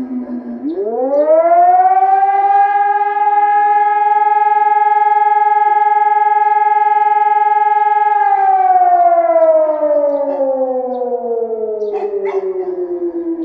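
Civil defense siren sounding its rising-and-falling wail. About half a second in it winds up quickly from a low tone to a steady high pitch, holds that for about six seconds, then slides slowly back down. In Bulgaria this is the annual 2 June siren of remembrance.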